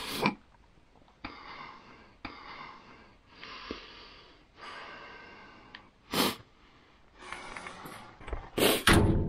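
A person breathing heavily close to the microphone, a run of breaths about a second each with short gaps between them. A short, loud burst comes about six seconds in, and louder bumps near the end.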